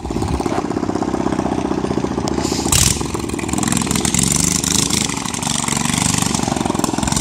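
13 hp mini bike chopper engine running steadily under way, with a fast, even firing pulse. A brief loud burst of noise breaks in about three seconds in.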